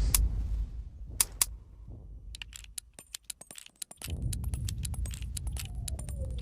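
Nagant M1895 revolver being handled after a shot: a few sharp metallic clicks, then a rapid run of clicks and light metal rattling as the action is worked.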